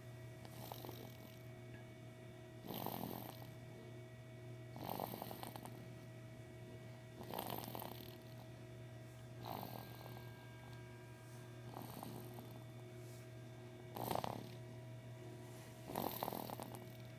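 Snoring: a rough, rasping breath about every two seconds, some louder than others, over a steady low hum.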